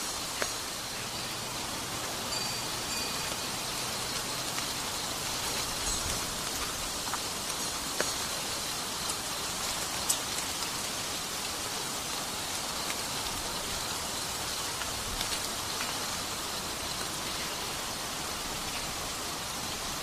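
Steady rain falling, an even hiss with scattered sharp drops ticking on nearby surfaces, one louder drop about ten seconds in.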